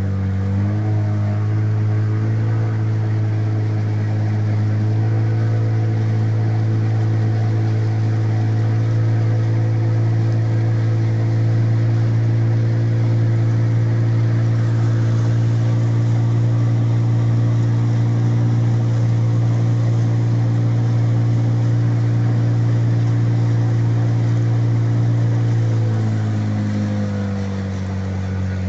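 Outboard motor of an inflatable boat running under way. Its pitch rises about half a second in, holds steady, then drops near the end as the engine slows.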